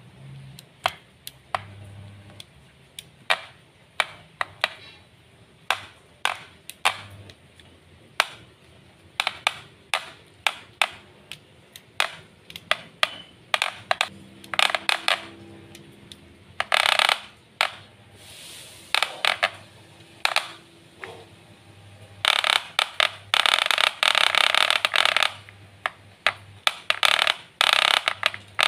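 Sharp, irregular clicks and clacks, one or two a second, from a Wahl Super Taper electric hair clipper being handled and turned over. Several longer, harsher stretches of a few seconds come in the second half, the longest lasting about three seconds.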